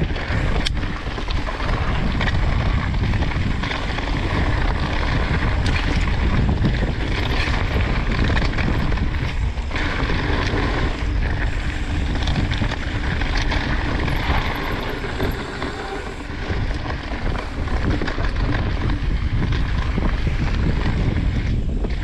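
Wind buffeting the microphone of a camera on a mountain bike riding a dirt trail: a steady, loud low rush with a few faint clicks and rattles scattered through it.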